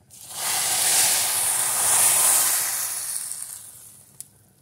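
Hot oil and melted butter with dried mint poured from a frying pan onto hot yogurt soup, sizzling loudly. The sizzle rises within half a second, is strongest about two seconds in, and dies away by about four seconds.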